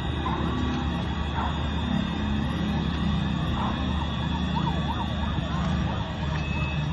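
Sirens sounding over a dense, steady din of street noise, with quick rising-and-falling yelp sweeps in the second half.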